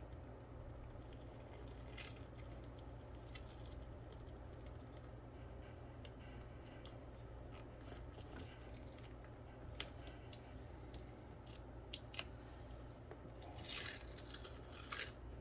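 Faint scattered clicks and crinkles of small laptop parts being handled, with a longer rustling crinkle near the end, as of tape or thin plastic being peeled or cut, over a steady low hum.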